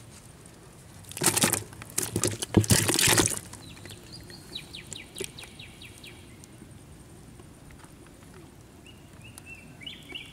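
Catfish splashing and thrashing in a shallow plastic tub of water for about two seconds. Birds chirp afterwards, a quick run of chirps near the middle and repeated calls near the end.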